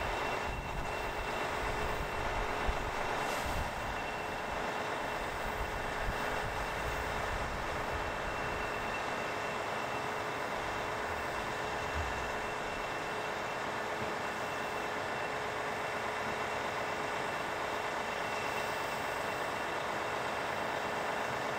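Heavy-haulage lorry's diesel engine idling steadily, with a steady high whine over it; the low rumble eases off about halfway through.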